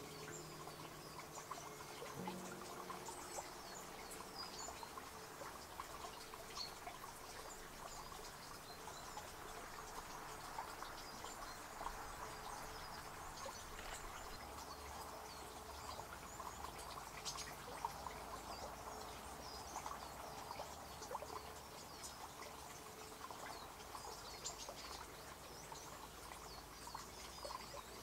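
Faint woodland ambience: a small stream trickling steadily, with scattered short, high chirps of small birds.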